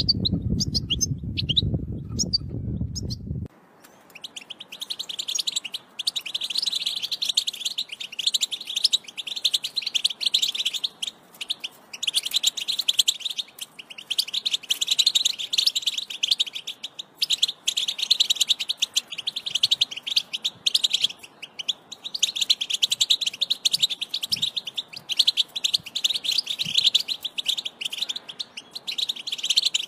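European goldfinch song in the Wedani style: long runs of rapid, high twittering and chirping, broken by a few brief pauses. A loud low-pitched noise sits under the first three and a half seconds and then cuts off abruptly.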